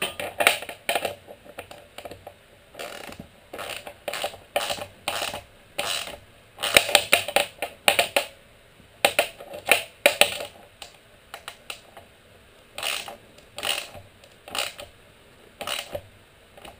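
Ratchet wrench clicking in short bursts, again and again, as it runs a Nylock nut down onto a stainless steel carriage bolt.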